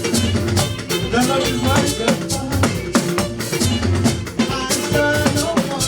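Church hymn music: singing voices over a steady beat of drum kit and shaker.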